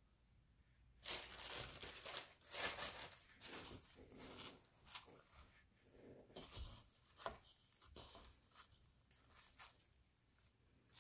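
Plastic cling film crinkling and crackling as it is pulled back from a bowl, in a dense run from about a second in, then in sparser, fainter crinkles.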